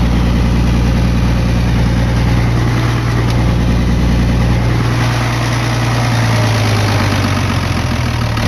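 M35A2 deuce-and-a-half truck's turbocharged multifuel diesel engine idling steadily, hot.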